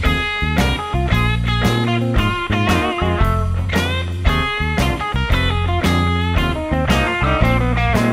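Background rock music: a guitar playing bending, wavering notes over bass and a steady beat of about two strokes a second.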